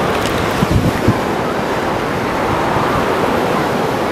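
Ocean surf washing onto a beach in a steady rush, with wind buffeting the microphone in a few low thumps about a second in.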